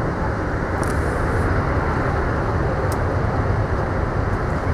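Boeing 737 airliner's jet engines, a steady low rumble as the plane lands.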